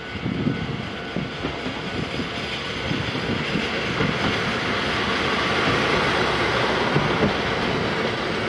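A single-car KiHa 40 diesel railcar passing close by, its engine and wheels growing louder as it nears. The wheels clatter and knock over the rail joints.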